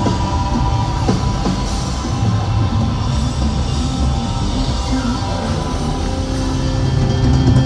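Loud rock music with drums over a concert sound system, recorded from within the audience.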